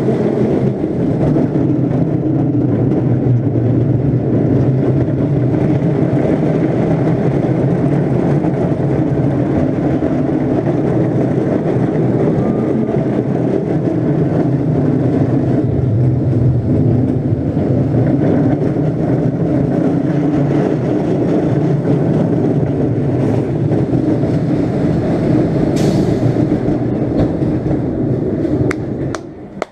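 Roller coaster car running along its track, a loud steady rumble of the ride. The rumble drops off sharply near the end as the car slows into the station.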